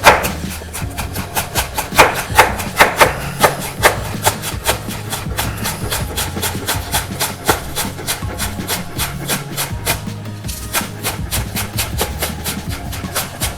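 Knife slicing scallions very thin on a cutting board: a quick, steady run of chops, several a second.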